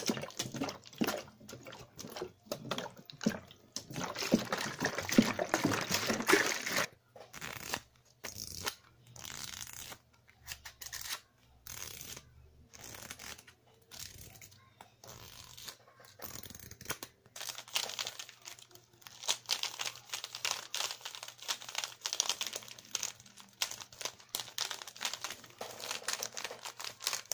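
Irregular crackling and rustling from a household object being handled, like something being crumpled, in uneven bursts with several short pauses.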